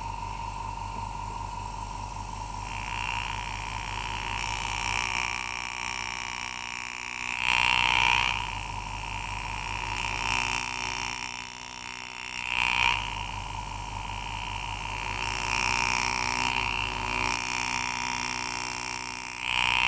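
Engraving graver cutting bright-cut shading into the petals of a silver-overlaid copper rivet, heard as several stretches of cutting noise over a steady high tone and low hum.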